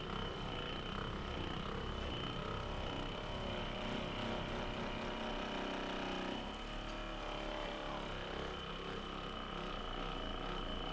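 A small electric motor running steadily with a high whine; its lower hum stops about six seconds in while the whine carries on.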